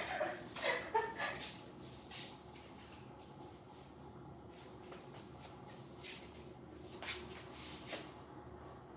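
Quiet small-room tone with a few faint, short taps and shuffles spread through it, after a man's voice trails off in the first second.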